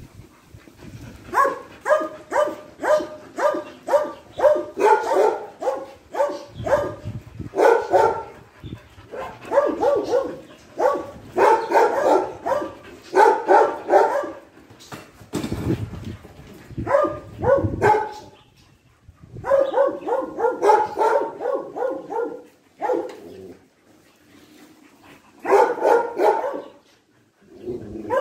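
A dog barking in rapid runs of about three barks a second, several runs with short pauses between them.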